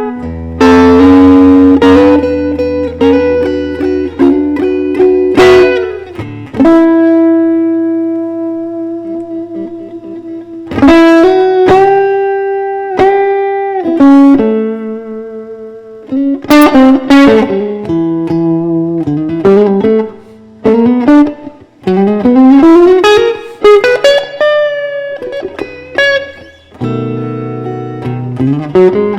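Electric guitar, a Fender Stratocaster, playing a blues instrumental passage: single notes and chords, with some notes held and some bent or slid in pitch.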